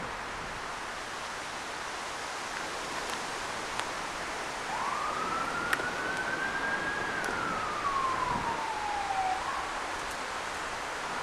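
Distant emergency-vehicle siren giving one slow wail, starting about five seconds in: its pitch rises for about two seconds, then falls for about two seconds. It sounds over a steady outdoor hiss.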